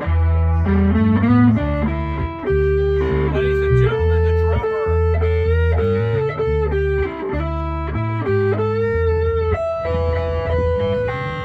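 A live band playing: an electric guitar carries a slow melody of held, wavering notes over a bass line.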